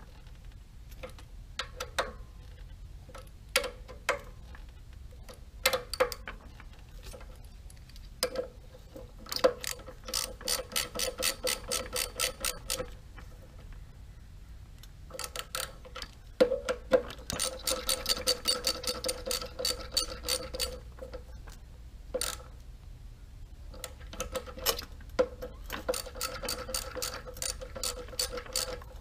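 Socket ratchet wrench clicking on a pressure washer pump head: single clicks at first, then several runs of rapid clicking a few seconds long, as the caps over the new check valves are turned back on.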